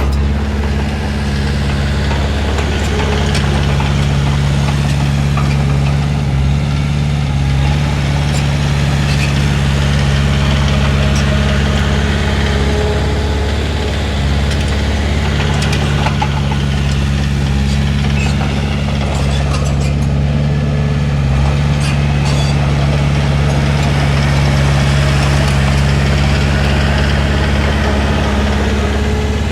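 Heavy diesel engine of an earthmoving machine running steadily, with a few light clicks and knocks over it.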